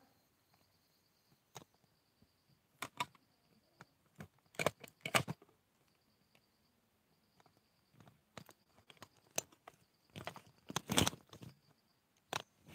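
Handling noise from a phone being moved about: scattered clicks and short rustling, scraping bursts against the microphone, loudest around five seconds in and again near the end.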